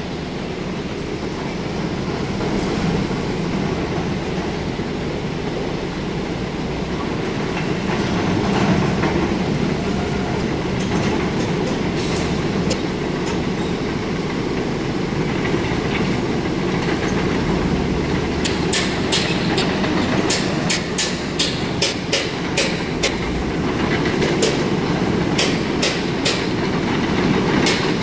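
Steady rumble of a moving vehicle in transit, with a run of sharp, regular clicks, about two a second, starting about two-thirds of the way through.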